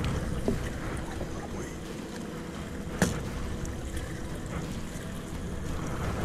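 Fishing boat's engine running steadily, with water and wind noise and a sharp click about three seconds in.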